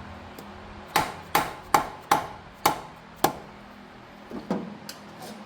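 A hammer tapping a pry tool wedged into the cam cover seam of a Harley-Davidson Evolution engine: six sharp, ringing metal taps, then a few lighter ones near the end. The taps are knocking the cover loose from its gasket.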